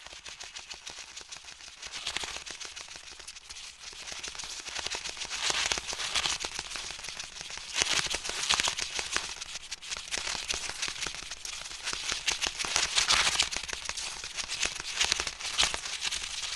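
Dense, irregular crackling of many small clicks and pops, building up over the first few seconds and then going on unevenly.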